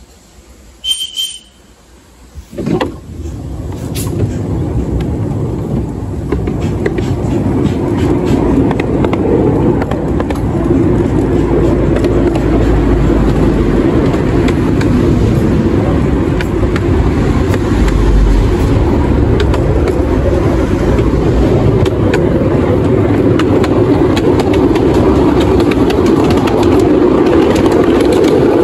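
Small ride-on miniature railway train getting under way and running along the track: a brief high tone and a knock near the start, then a steady rumble with many small clicks of wheels on rail that builds up over the first several seconds and stays loud.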